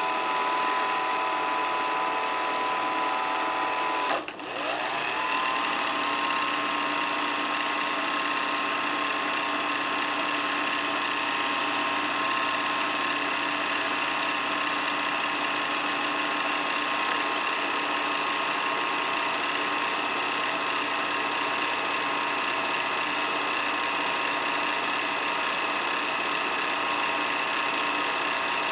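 8mm film projector running: a steady mechanical whir and rattle with a high whine over it. Just after four seconds in it dips for a moment, then the whine glides back up to pitch as the motor returns to speed.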